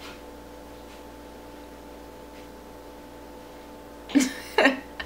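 A steady background hum made of several even tones, the noise in the background the speaker points out. About four seconds in, two short vocal sounds break in.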